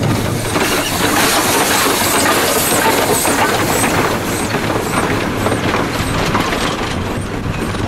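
Two-foot-gauge SAR Class Ng15 steam locomotive under way: a steady, loud rattle and hiss with many short clicks and small high squeaks repeating about twice a second.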